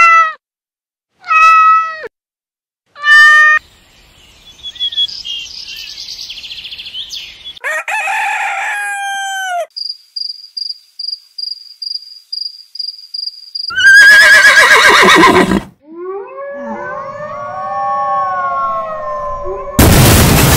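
A string of separate short sound effects, one after another: three cat meows, then more animal calls, a run of quick high beeps at about three a second, and gliding tones. A loud burst of noise starts near the end.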